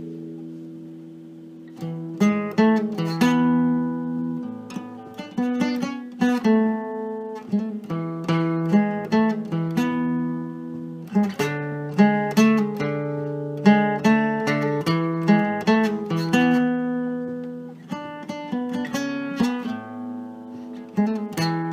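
Instrumental music on a plucked acoustic string instrument. A chord rings out and fades, then from about two seconds in, picked notes and strummed chords follow one another in a steady rhythm.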